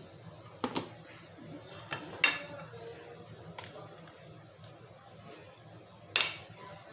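Kitchen utensils and dishes clinking and knocking against each other, about five separate sharp clinks, the loudest a little after two seconds in and another near the end with a short ring.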